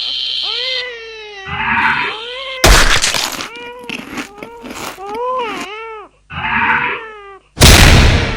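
Cartoon sound effects: a steady high electronic tone, then a run of wailing cries that rise and fall in pitch, broken by two loud crashes, one about two and a half seconds in and one near the end.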